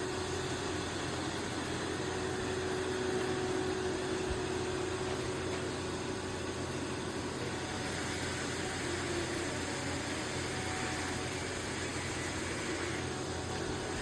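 iRobot Roomba Plus 405 robot vacuum-mop running, a steady motor whir with a faint constant hum underneath.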